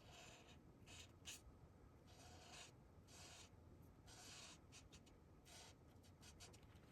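Bianyo alcohol marker nib rubbing on cardstock in a series of short, faint colouring strokes, as a small area is filled in yellow.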